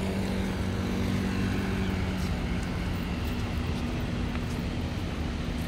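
Street traffic: a steady rumble with the hum of motor vehicle engines running, without a clear pass-by.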